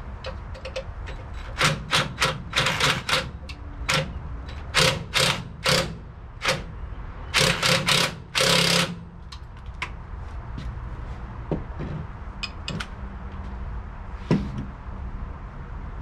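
Cordless impact wrench run in a string of short bursts, tightening the motor mount slider bolts on an LS engine swap. After the bursts stop there are scattered light clicks and a single metal knock near the end.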